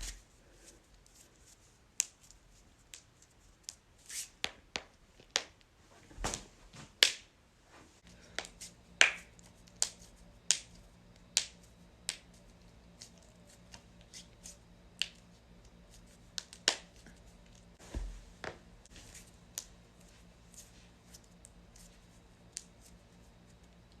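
Joints cracking: a long run of sharp pops and clicks at irregular intervals, some much louder than others. A faint steady low hum comes in about a third of the way through.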